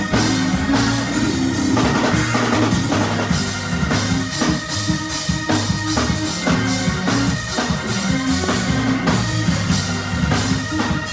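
Instrumental music with a drum kit keeping a steady beat over a bass line and held keyboard chords.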